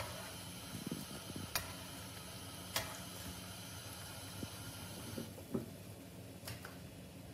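Triangles of bread shallow-frying in hot oil in a nonstick pan, a soft steady sizzle. A few sharp clicks of metal tongs against the pan come through as the pieces are lifted out, and the sizzle thins after about five seconds.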